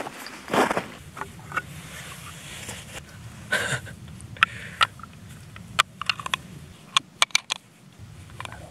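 Sharp clicks and light knocks of small metal cartridges and a small black part being handled in the hands, coming in quick bunches in the second half, over a faint steady low hum. A couple of crunchy, footstep-like noises come in the first second.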